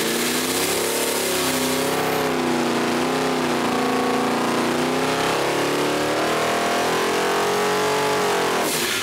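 Supercharged 406 small-block Chevy V8 with a centrifugal blower running at full throttle on an engine dyno, the pitch climbing through a boosted power pull from 3,500 toward 5,500 rpm. It drops off abruptly near the end with a brief hiss.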